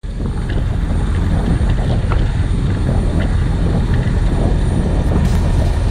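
Diesel engines of a Cat AP655F asphalt paver and a dump truck tipping asphalt into its hopper, running steadily as a dense low rumble with a few light knocks.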